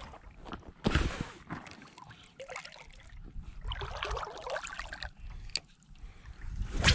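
Shallow water sloshing and trickling around a wading angler's legs, with two sharp knocks, one about a second in and a louder one at the end.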